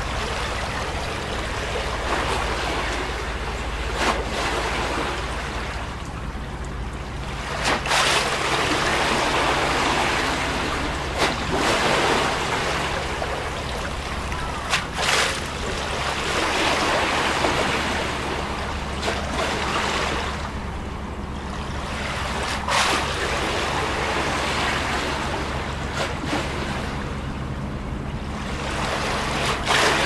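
Small harbour waves lapping against a concrete quay wall, the wash swelling and fading every few seconds, with an occasional sharp slap of water against the wall.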